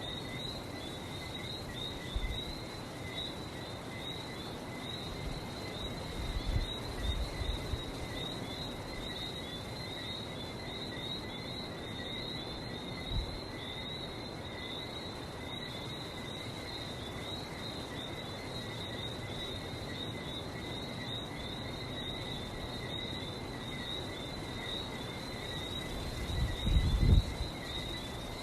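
Dense night chorus of Lesser Antillean whistling frogs, many high chirping whistles overlapping without pause, over a steady wash of background noise. Low rumbling swells come through twice, about a quarter of the way in and again near the end.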